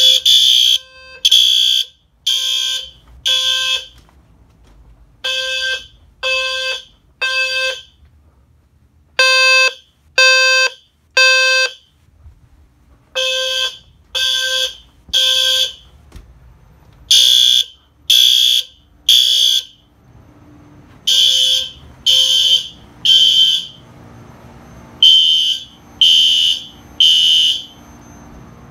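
System Sensor fire alarm horns sounding the temporal-3 evacuation pattern: three half-second blasts, a short pause, repeating about every four seconds. Each blast combines the HW-LF low-frequency sounder's low buzzing 520 Hz square-wave tone with the higher-pitched tone of the PC2W-P and P1224MC horn strobes.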